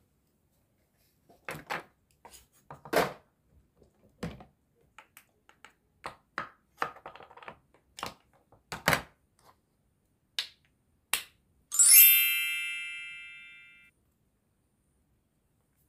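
Toy kitchen pieces knocking and clacking on a wooden cutting board as a toy knife cuts a toy tomato, with a short scratchy rasp in the middle. About twelve seconds in, a bright chime rings once and fades over about two seconds.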